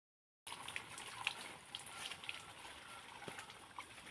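Faint water splashing and trickling as a bucket of well water is poured out, with scattered small clicks and knocks. It starts abruptly about half a second in, after silence.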